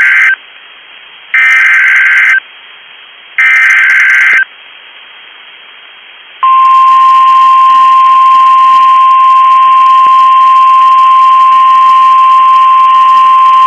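NOAA Weather Radio alert: the end of one SAME header burst and two more, each a harsh burst of digital data tones about a second long and two seconds apart. About two seconds after the last burst, the single-pitch 1050 Hz warning alarm tone starts and holds steady, signalling a warning, here a severe thunderstorm warning.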